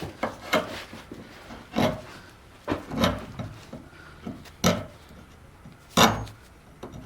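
Hand scraper drawn across a wooden chair part, scraping off old dried glue in short, separate strokes at irregular intervals, the loudest about six seconds in.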